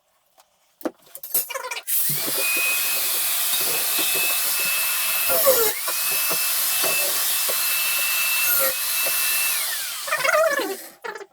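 Angle grinder spinning up and cutting through steel angle profile: a loud grinding hiss over a steady high motor whine. The whine dips briefly once midway, then winds down near the end. A few handling clicks come before it.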